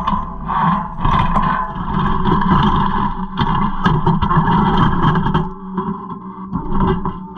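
Caterpillar 256C skid steer's engine running under load while its rock grapple scoops broken concrete slabs and packed snow, with repeated scraping and clunks of concrete against the steel grapple tines.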